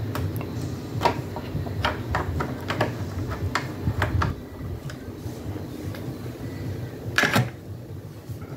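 Hard plastic clicks and taps as the hood of a scale RC car body is worked loose and lifted off, then a louder knock about seven seconds in as it is laid down on a wooden bench.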